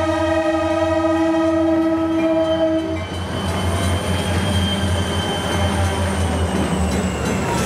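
Diesel locomotive air horn sounding a long, steady chord that cuts off about three seconds in. The train then rolls by with engine rumble and wheel noise, plus a faint high whine that slowly drops in pitch.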